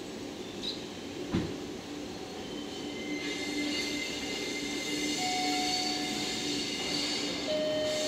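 JR Freight EF510 electric locomotive moving slowly past with its train. A single thump comes about a second and a half in. Then the train grows louder, with steady high whining tones and brief squeals.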